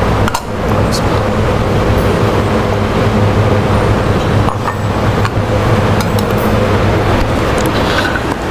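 Steady rumbling background noise with a low hum running under the microphone.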